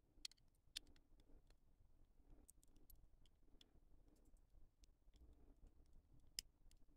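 Near silence broken by scattered faint clicks of the plastic parts of a Bandai Perfect Grade Zeta Gundam model kit being handled and fitted together. The sharpest click comes near the end.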